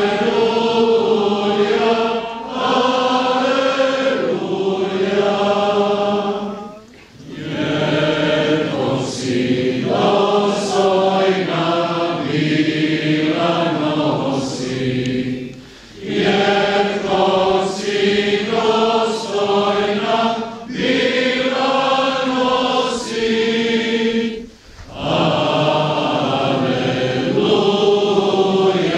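Many voices singing a slow sung liturgical chant together, in long phrases with a short pause for breath about every eight to nine seconds: a chant at a graveside burial rite.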